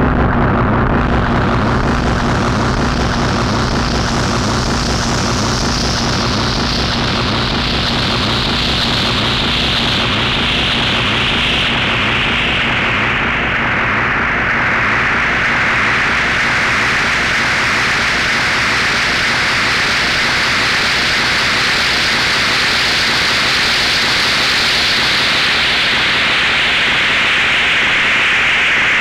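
Analog-style synthesizer noise from a KOMPASS and a Korg Monotron: a dense, continuous hiss over a rough low rumble. Its brightness slowly sweeps, dropping to its dullest about halfway through, rising again, then falling a little near the end, as the knobs are turned.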